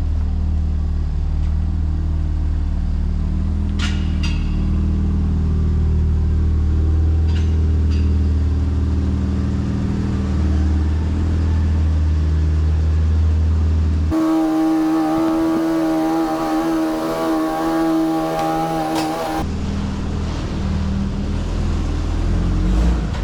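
Holden VL Commodore's RB30 straight-six running at low speed while the car is manoeuvred onto the dyno rollers. For about five seconds in the middle the low rumble gives way to a higher, wavering hum.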